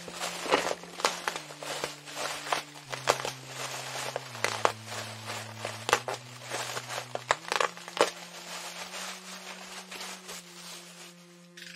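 Packaging being handled: dense, irregular crinkling and crackling that thins out toward the end, over a background of slow held low keyboard notes that change pitch every second or few.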